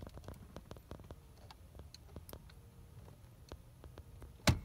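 Tilt steering column of a 1980 Lincoln Continental Mark VI being worked by hand at its chrome lever: scattered faint clicks and ticks, with one sharper click near the end.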